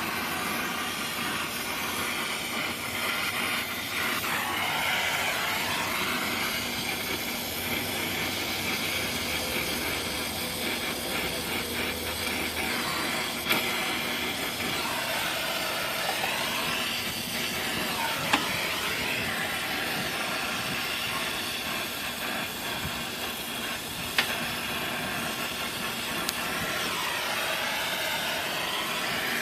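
Brazing torch flame hissing steadily as an AC unit's line connections are heated and brazed, its tone hollowing and shifting now and then, with a few sharp clicks.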